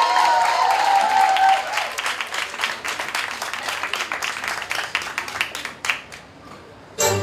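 Audience applause that thins out and dies away about six seconds in. Music then starts abruptly just before the end.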